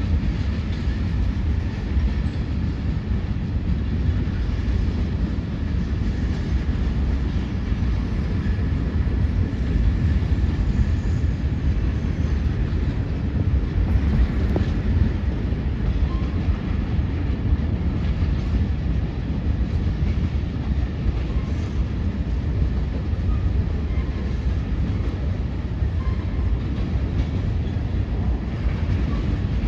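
CSX freight train rolling past, its cars making a steady low rumble on the rails.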